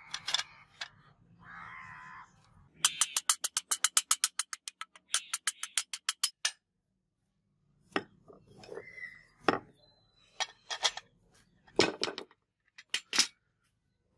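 Wooden handle block and brass fittings being dry-fitted onto a sword's steel tang: a short scrape as the wood slides on, then a fast run of sharp clicks and taps, and later scattered single knocks as the parts are pushed together and set down on concrete.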